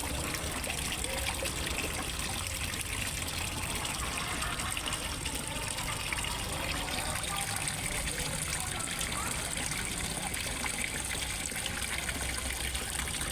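Water steadily gushing and trickling into a fish pond, as from a small waterfall or inflow.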